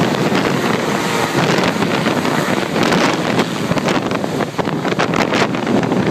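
Air ambulance helicopter's rotor and engines running loud and steady as it climbs and banks away overhead after takeoff, with wind buffeting the microphone.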